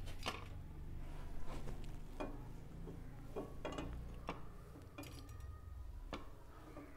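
Cooking oil heating in a nonstick frying pan, giving sharp, irregular ticks and pops, about nine of them, over a low steady rumble.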